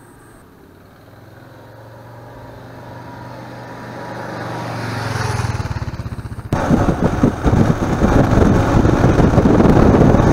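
A motorcycle engine approaching and growing steadily louder, pulsing as it nears. About six and a half seconds in it cuts abruptly to riding on board a Kawasaki KLR650 single-cylinder dual-sport, with loud wind buffeting the microphone over the engine.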